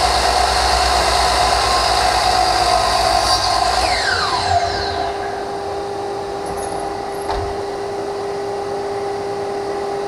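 A miter saw runs for about four seconds through a cut in rubberized shoe moulding, then the trigger is released and the motor winds down with a falling whine. A shop vacuum hooked to the saw keeps up a steady hum throughout, with a light knock near the end.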